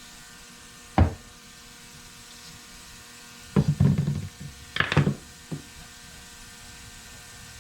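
Hand tools and steel steering-rack parts knocked and clattered on a workbench while a bearing is worked off the pinion: one sharp knock about a second in, a burst of clattering in the middle, then a last light tap.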